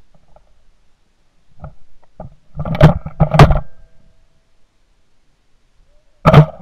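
Two shotgun blasts from a semi-automatic 12-gauge, about half a second apart, then a third sharp bang a few seconds later. After the last shot the gun fails to cycle and jams, because a defective shell hull has not ejected.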